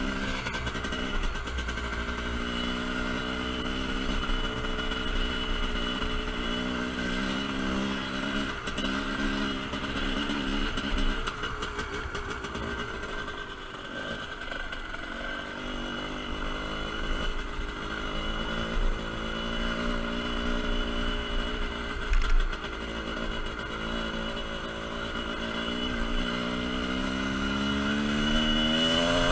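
TM Racing 250cc dirt bike engine running under load on the trail, its pitch rising and falling with the throttle. It eases off and goes quieter about halfway through, then climbs steadily in pitch near the end as the rider accelerates.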